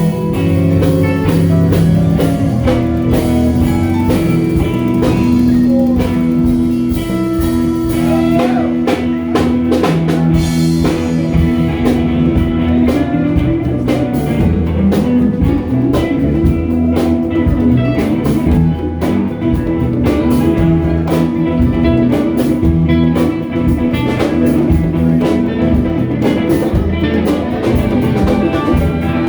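A band playing music: guitar over a steady beat of drums.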